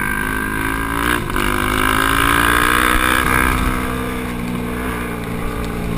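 Quad (ATV) engine running hard, its pitch climbing for a couple of seconds as it accelerates, holding, then easing off slightly near the end. A brief click about a second in.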